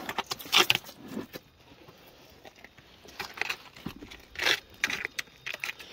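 Wet stones and shell grit clinking and scraping in short, irregular bursts as they are shifted among rocks with a wooden stick.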